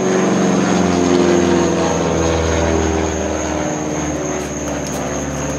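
Steady drone of a propeller airplane engine.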